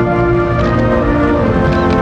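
National anthem playing as instrumental music with held chords.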